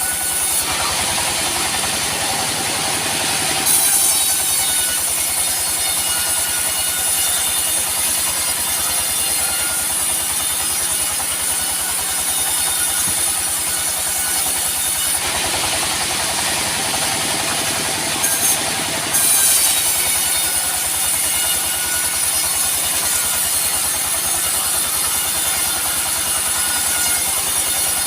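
Sawmill machinery running steadily while sawing teak wood: a continuous mechanical drone with many steady overtones, its tone shifting around 4 seconds in and again between about 15 and 19 seconds in.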